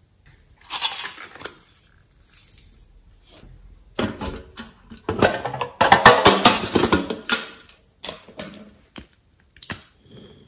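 Hard plastic container being handled and its lid pried open: a dense run of plastic clicking and clattering through the middle, with a short hissy rustle about a second in and a few light clicks near the end.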